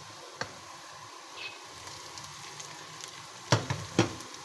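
Sliced onions sizzling gently in hot oil in a wok. A small click about half a second in, then a few sharp knocks near the end as garlic-ginger paste is added to the pan.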